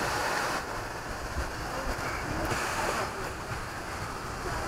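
Sea surf washing on the shore, a steady noisy wash, with wind on the microphone and faint voices in the background.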